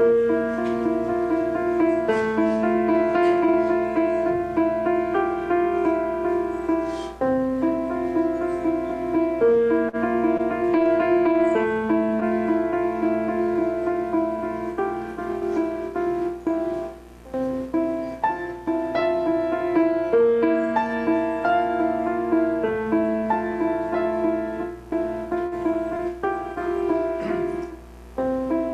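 Slow piano music, held notes moving in phrases with brief breaks between them.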